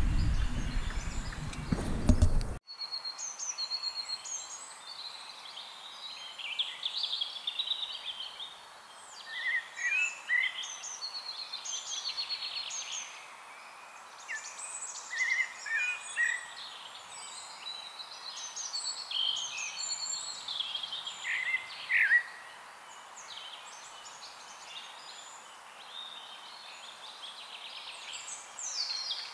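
A low rumbling noise for the first two and a half seconds, cut off suddenly. Then several songbirds singing and chirping in short, varied phrases over a faint steady hiss.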